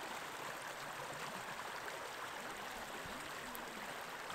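Shallow creek rippling over rocks: a steady rush of running water.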